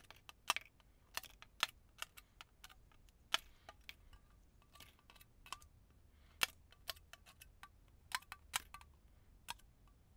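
Irregular sharp clicks and taps, about two or three a second, as the metal tip of a poking tool is pushed through the ejection holes of a jigsaw cutting die, popping the cut cardstock puzzle pieces out.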